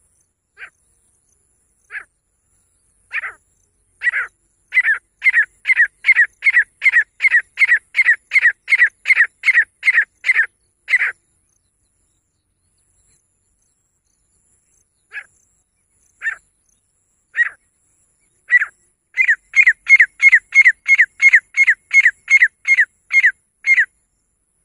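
Female grey francolin calling: a few spaced calls speed up into a fast run of short, repeated notes at about two a second. After a pause of a few seconds the calls start again and build into a second fast run.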